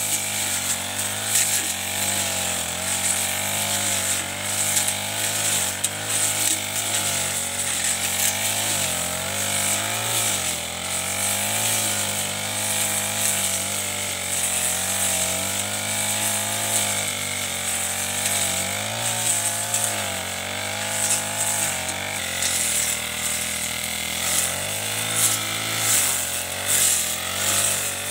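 Backpack four-stroke brush cutter with a Chinese-made Honda-type engine running under load while cutting tall grass and weeds. The engine note wavers up and down as the cutting head bites into the growth, over a steady high hiss.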